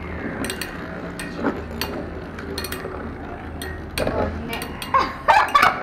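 Metal-wheeled Beyblade spinning tops clicking and clinking as they knock into each other and the sides of a plastic stadium, a string of sharp irregular clicks. Voices come in over the last couple of seconds.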